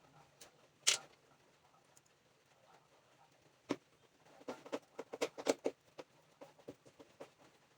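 Scattered sharp knocks and clicks: a single loud knock about a second in, then a quick cluster of taps a little past the middle, over a low steady hum.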